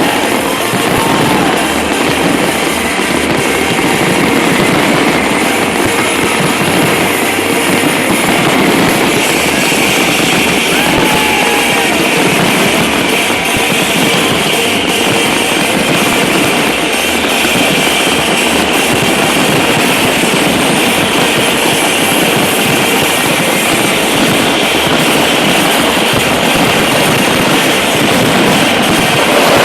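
Fireworks display going off continuously: a dense, steady mass of crackling bursts, with a few short whistles in between.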